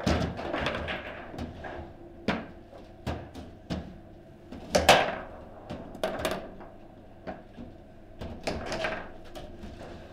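Table football in play: sharp clacks and knocks as the ball is struck by the plastic player figures and the rods are worked, irregular throughout, with the loudest hit about five seconds in.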